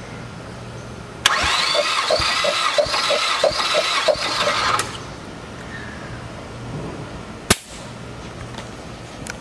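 Mazda 2.3L turbocharged four-cylinder (L3-VDT) engine turned over by its starter for a compression test. It cranks with an even chug about three times a second for about three and a half seconds, then stops. A single sharp click comes a few seconds later.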